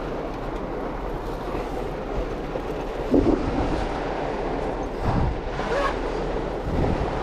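Heavy rain on a car mixed with tyre and road noise, a steady rushing noise with a few short knocks along the way.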